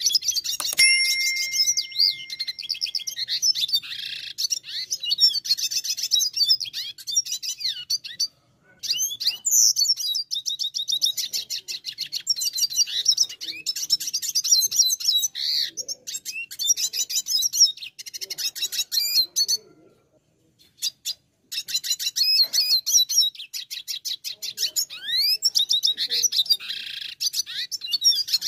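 Red siskin singing in long, fast runs of high trills and twitters, breaking off briefly twice, about a third of the way in and again past two-thirds.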